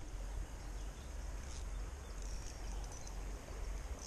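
Spinning reel being cranked to retrieve fishing line, over a steady low rumble.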